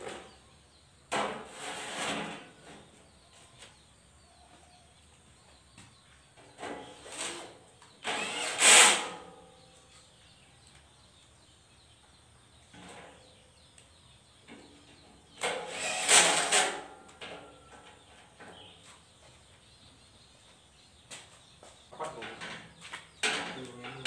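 Handheld cordless drill run in short bursts while fastening a fender to a mini jeep's frame: five runs of one to two seconds each, the loudest about halfway through.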